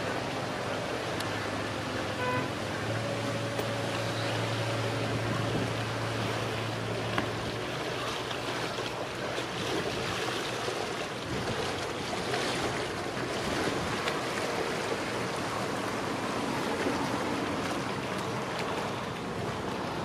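Steady wind and rippling river water, with a low engine hum that is strongest for the first several seconds and then fades.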